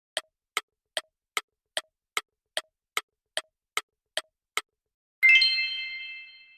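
Countdown timer sound effect: twelve sharp ticks, about two and a half a second, then a bright bell chime a little after five seconds in that rings and fades away.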